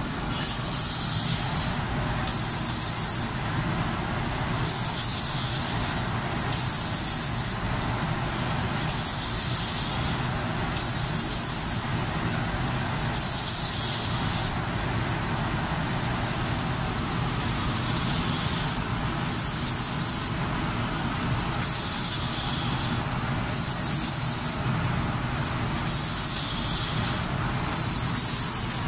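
Automatic paint spraying machine's spray gun hissing in short bursts of about a second each, about a dozen times with a longer pause midway, over steady machine noise.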